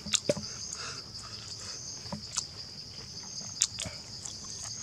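Steady high-pitched chorus of insects buzzing in the forest, with a few short, sharp clicks and taps from food being handled.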